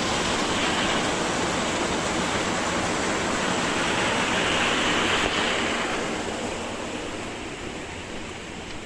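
A river rushing steadily over its bed, growing fainter over the last few seconds.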